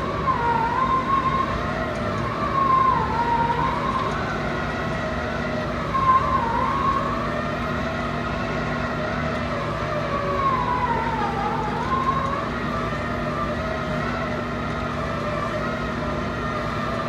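Piling rig running: a steady diesel engine hum under a high whine that wavers and dips in pitch as the machine works and moves.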